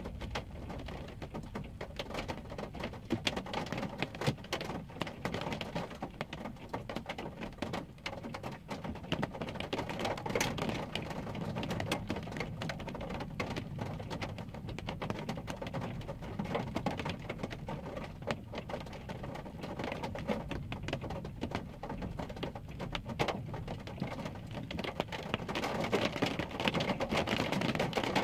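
Rain pattering on a car's windshield and roof, heard from inside the car as a dense spatter of sharp drop hits over a steady wash. It swells louder about ten seconds in and again near the end.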